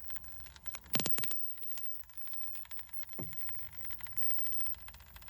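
A ParkSafe 24V 3000W power inverter, its case off, idling with no load and giving a steady electrical buzz. A few sharp clicks come about a second in, and one more after about three seconds. The owner is unsure whether this buzz is normal for a nine-year-old inverter.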